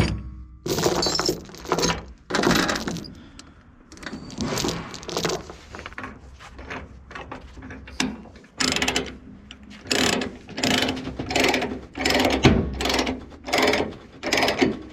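Broom sweeping gravel off steel machine tracks and a trailer deck, with separate scraping strokes at first, then quicker strokes of about two a second in the second half.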